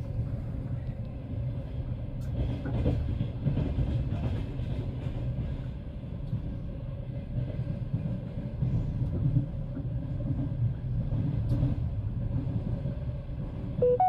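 Passenger train running along the track, heard from inside the carriage: a steady low rumble with a few faint knocks.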